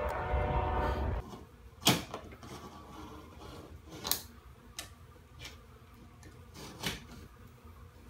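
A train horn holds one long steady blast that stops about a second in, followed by a handful of sharp knocks and taps spread over the next few seconds, the loudest near two seconds in.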